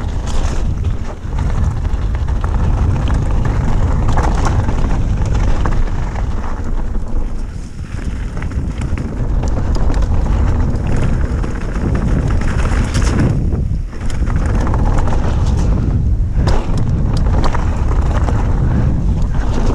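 Wind buffeting a small action camera during a fast mountain-bike descent, over the rumble of tyres on a dirt trail and frequent rattles and knocks from the bike. The noise eases briefly twice.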